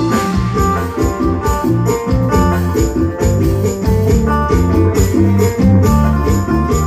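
Music with a steady beat: held bass and keyboard-like notes changing in steps, over shaken or jingling percussion like a tambourine.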